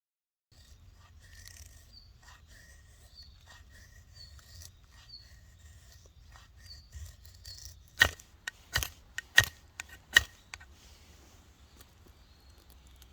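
Faint short chirps repeating about once a second over a low rumble, then four loud sharp knocks or snaps in quick succession, with a couple of lighter ones among them, about two-thirds of the way in.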